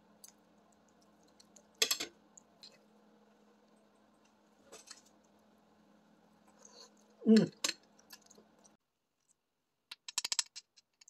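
Metal cutlery clicking and scraping against a plate and the beef shank, with a few separate clicks, then a quick run of clicks near the end as a spoon scoops marrow from the bone. A low steady hum underneath stops abruptly near the end.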